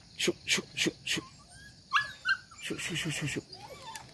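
Hunting dogs yipping: four quick, sharp yips in about the first second, then a fast run of yelps around the middle, with faint bird chirps behind.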